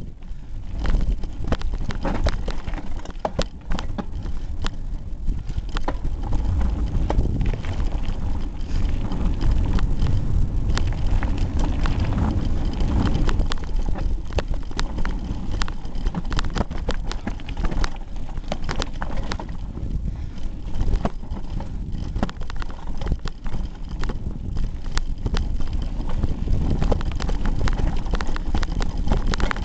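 Hardtail mountain bike ridden down a rocky trail, heard through a camera duct-taped to the handlebars: constant rattling and knocking of the bike and camera mount over rocks and roots, over a deep rumble of vibration and wind on the microphone.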